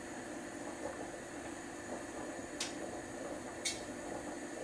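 Faint steady hum and hiss from a Bosch Tassimo pod coffee machine, with two short sharp clicks about a second apart past the middle.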